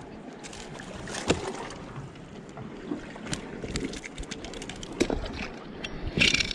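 A plastic cooler box full of ice being handled: scattered clicks and knocks over a steady background hiss, with a louder clatter near the end.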